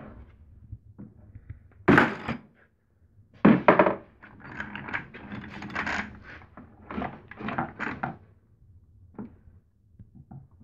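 Hammer blows on a ratchet handle to break a stubborn drill chuck loose from its reverse-threaded output shaft: several sharp metallic knocks in the first four seconds, then irregular clinking and rattling of the ratchet, wrench and chuck.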